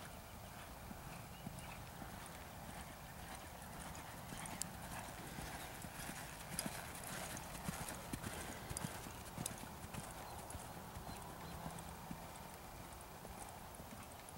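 Hoofbeats of a bay American Quarter Horse mare ridden over a dirt arena, growing louder in the middle as she passes close by.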